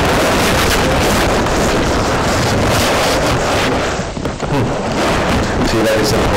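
Loud, dense rustling and rumbling of cloth rubbing against the camera microphone, easing briefly about four seconds in.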